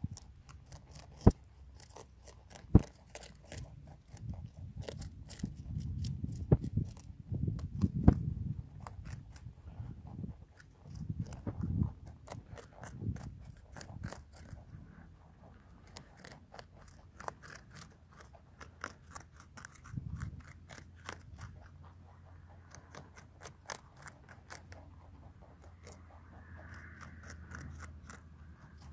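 Rabbits biting and chewing red cabbage leaves: rapid, crisp crunching in quick runs with short pauses, over soft low bumps.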